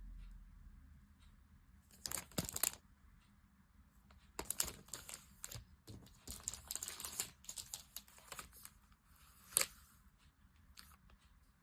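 Packaging being unwrapped by hand: plastic and paper wrapping crinkling and tearing in several short bursts of crackle, the sharpest one near the end.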